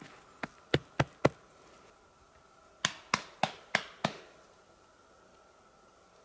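Sharp knocks in two quick runs, four strikes and then five more after a short pause, about three strikes a second. A faint steady high tone sounds underneath.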